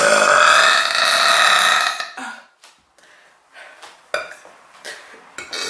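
A woman's long, loud burp that ends about two seconds in, followed by a few soft clicks and a quieter sound starting near the end.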